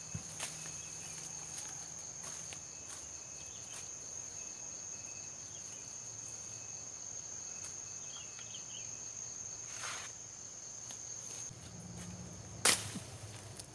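Steady high-pitched insect drone, typical of a cricket or cicada, which stops near the end. A few faint clicks and a soft knock are heard, then one sharp snap or knock about a second before the end, the loudest sound.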